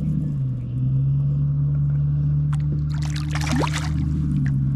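Boat motor running steadily with a low hum. Its pitch drops slightly about half a second in and rises again near the end.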